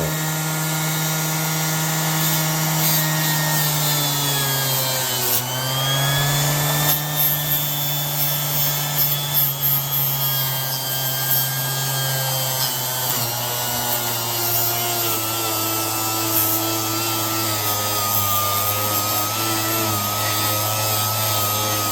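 Orbital sander with a 220-grit Diablo disc running against the steel blade of a painter's 5-in-1 tool: a steady motor whine over a rough abrasive rub. About five seconds in the motor's pitch dips briefly under load, then comes back up.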